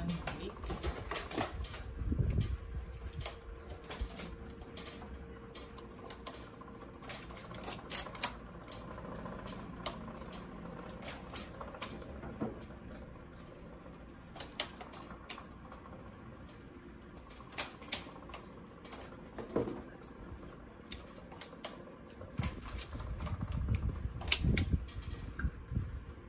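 Irregular light clicks and rattles of a knitting machine's cast-on comb being hooked onto the freshly knitted row along the needle bed, with a weight then hung from it. Low handling thumps come about two seconds in and again near the end.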